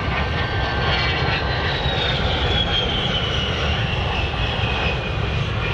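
A-10 Thunderbolt II's twin turbofan engines whining as the jet passes and pulls away, the whine falling steadily in pitch over a constant low rumble.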